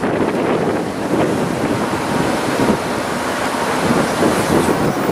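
Gusty wind blowing across the camera microphone, a loud, uneven rumble of wind noise.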